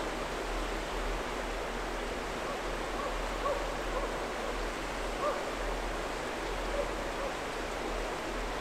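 A beagle baying in the distance while running a roe deer: a few short, faint calls over a steady rushing noise.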